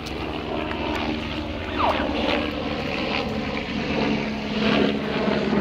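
Propeller airplane flying overhead, its engine a steady drone that grows a little louder near the end.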